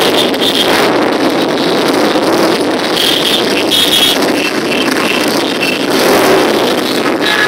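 A procession of cruiser motorcycles riding slowly past in a close column, their engines running loud and steady.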